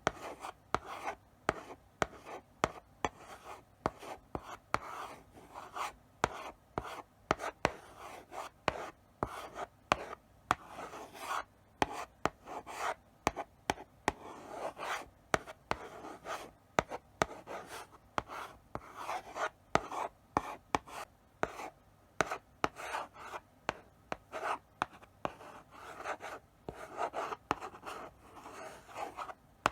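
Chalk writing slowly on a blackboard: a continuous run of short scratchy strokes, with many sharp taps as the chalk meets the board.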